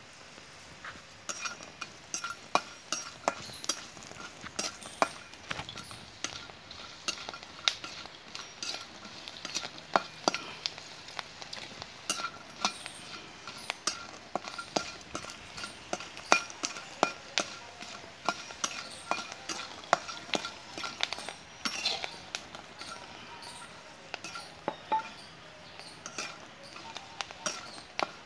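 Metal spatula stirring and tossing fried potato chips in a wok: irregular sharp clinks and scrapes of metal against the pan, several a second, starting about a second in.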